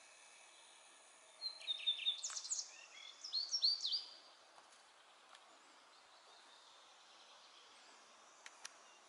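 A songbird sings one quick phrase of high whistled notes, some sweeping up and down, starting about a second and a half in and lasting a little over two seconds. Another bird gives two short high notes near the end, over a faint steady outdoor hiss.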